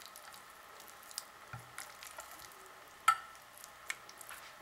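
Hands rolling a raw pork loin coated in red chile sauce in a ceramic baking dish: soft wet squishing of meat and sauce with scattered small clicks, and one sharp click about three seconds in.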